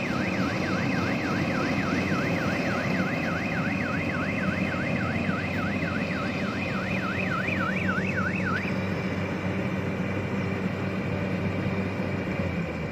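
Crawler combine harvester's engine running steadily, with a rapid warbling electronic warning alarm over it, rising and falling about three to four times a second. The alarm stops about two-thirds of the way in.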